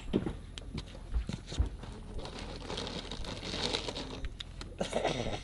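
Wood campfire in a fire pit crackling, with scattered sharp pops.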